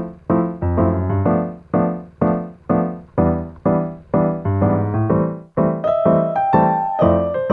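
Background music on piano: chords struck about twice a second, each one fading away, with higher held melody notes joining near the end.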